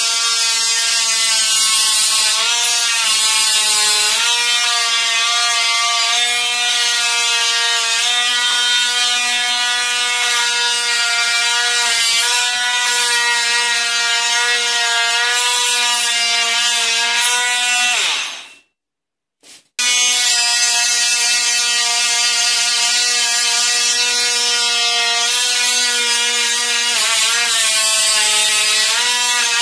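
Vityaz VMR-12 cordless oscillating multi-tool running with a steady buzzing whine as its blade works against a plastered wall, its pitch dipping now and then. About eighteen seconds in it is switched off and winds down, dropping in pitch. It starts again a second or so later.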